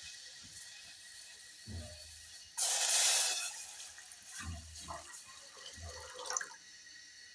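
Water runs or pours in a short rush of about a second, starting suddenly a little over two seconds in and fading out. A few dull knocks of kitchenware being handled come before and after it.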